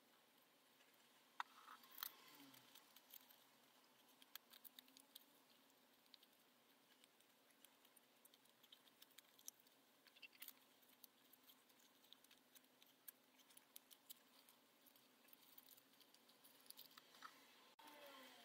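Faint, irregular crackles and rustles of thin copy paper being folded and pinched between fingertips, with a couple of sharper clicks about two seconds in.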